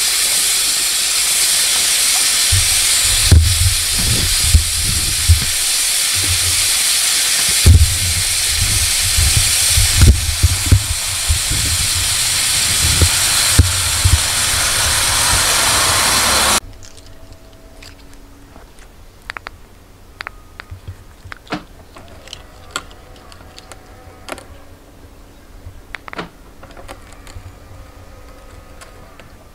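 High-pressure jet hissing loudly and steadily, with irregular low thumps underneath; it stops abruptly a little over halfway through. After that it is quiet, with scattered light clicks.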